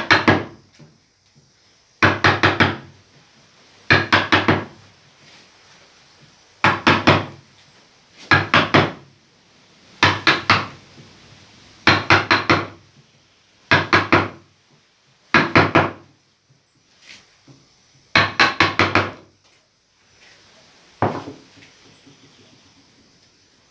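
Wood-carving chisel being struck into a wooden relief panel: quick bursts of three to five sharp wooden knocks, one burst about every two seconds, ending with a single knock a couple of seconds before the end.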